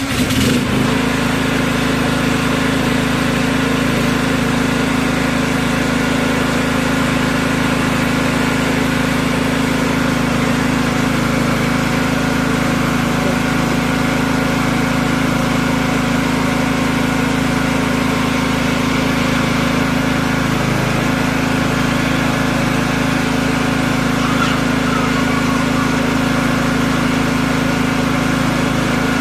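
Portable petrol generator engine running steadily at constant speed, an even, unchanging hum.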